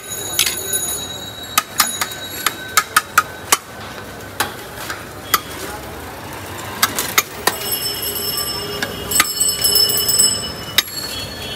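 Steel serving spoon clinking and scraping against a large aluminium biryani pot as rice and mutton are scooped out: a string of sharp metallic taps, each ringing briefly.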